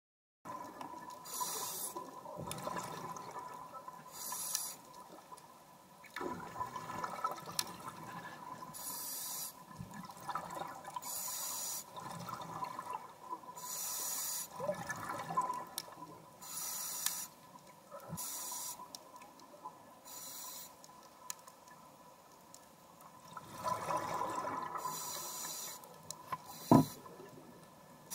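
A scuba diver breathing through a regulator underwater: a short hiss with each breath every couple of seconds, with bubbling between, over a faint steady whine. One sharp knock near the end is the loudest sound.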